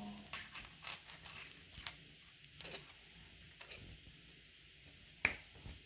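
Scattered light clicks and taps of plastic Lego pieces being handled, irregular, with the sharpest click about five seconds in.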